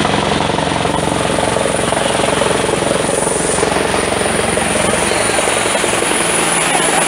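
Bell 212 helicopter's rotor chopping steadily as it comes in low overhead to land, together with the engine's steady drone.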